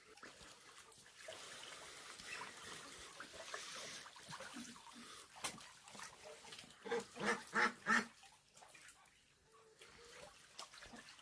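Farmyard waterfowl calling: scattered calls, then a quick run of four loud calls about seven seconds in.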